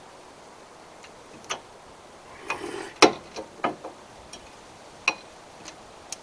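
Irregular sharp metallic clicks and clanks from brake parts and tools being handled during a front brake pad change. They come in a cluster with the loudest clank about three seconds in, then one more near the five-second mark and one near the end.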